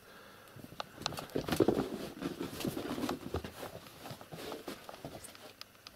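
Irregular soft thumps and scuffling of two kittens play-fighting on a blanket-covered bed, starting about a second in.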